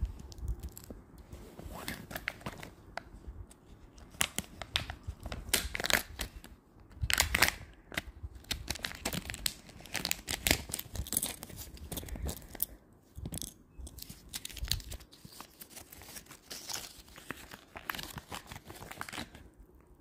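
Peel-off seals being torn back from the plastic halves of a Kinder Joy egg, with crinkling wrapper and clicking plastic as the toy and its paper leaflet are handled. Irregular rustling and crackles, loudest about seven seconds in.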